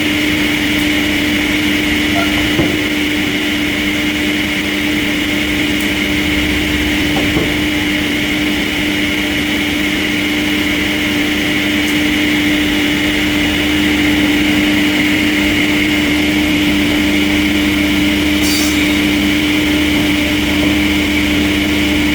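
Sawmill machinery running steadily: a constant hum with a high, even whine over it.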